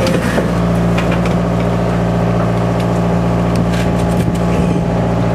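A party fishing boat's engine running steadily, a constant low drone with a few faint knocks over it.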